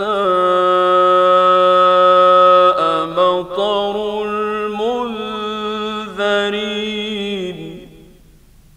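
A male reciter chanting the Quran in the drawn-out mujawwad style, solo. He holds one long steady note for nearly three seconds, then moves through several steps in pitch with quick ornamental turns. The voice fades out shortly before the end, leaving only a faint low hum.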